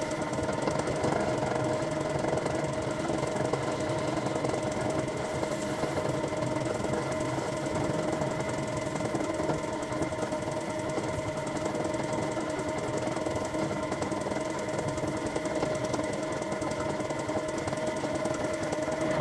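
Metal lathe running steadily with a constant whine, turning down the outside diameter of a Metabo drill chuck.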